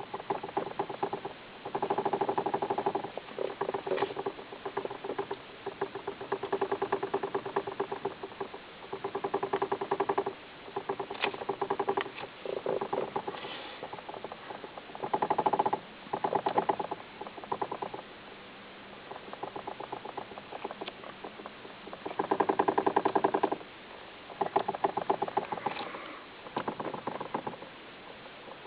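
Rapid rattling knock from the steering column of a 2003 Toyota Avensis 1.8, coming in repeated bursts of a second or two with short pauses between. It is a knock in the steering column, the sign of a fault there.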